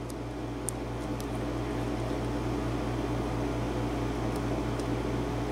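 Small room air conditioner running with a steady droning hum and hiss, with a few faint ticks over it in the first second or so.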